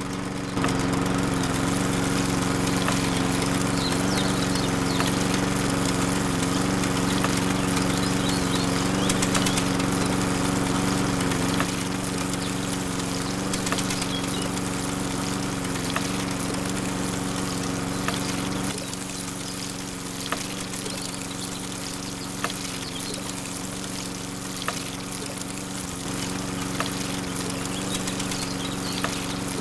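Small motor running steadily with a constant hum at one pitch, a little quieter from about twelve seconds in and again from about nineteen seconds in, with a few faint clicks.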